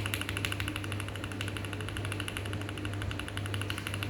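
Rapid, continuous typing on a mechanical keyboard fitted with lubed TTC switches, in a V65 board with a foamed case and an FR4 plate. The keystrokes come as a fast, even stream of clacks, roughly ten a second, over a steady low hum.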